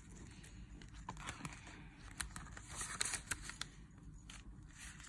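Soft, scattered rustling of paper banknotes and crinkling of a clear plastic zipper pouch as cash is handled and slipped into a budget binder, with a few light clicks.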